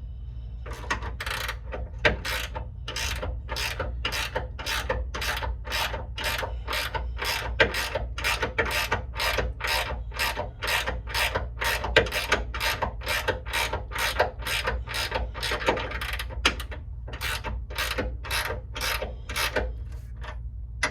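Hand ratchet wrench clicking in steady back-and-forth strokes, about two a second, as it runs a nut down a long bolt with a long way still to go. A steady low hum runs underneath.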